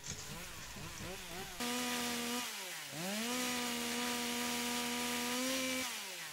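Two-stroke chainsaw engine revving in quick up-and-down blips, then from about a second and a half in held at a steady high whine. The pitch sags briefly and climbs back, then falls away near the end.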